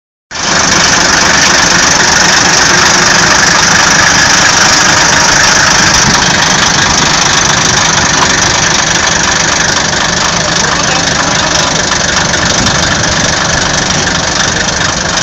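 Air-cooled 16-litre Deutz V12 diesel engine fitted in a tractor, running steadily and loudly through tall open exhaust stacks; it eases off slightly partway through.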